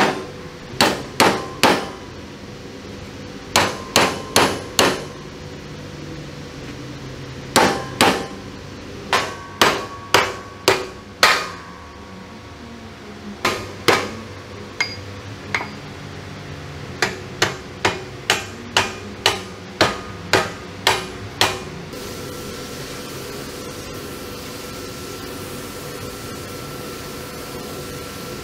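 Hammer blows ringing on the steel driver's vision block of a StuG III clamped in a vise. The blows come in quick runs of a few strikes with short pauses, the longest run near the end of the hammering. A steady machine hum with a thin high tone then takes over for the last few seconds.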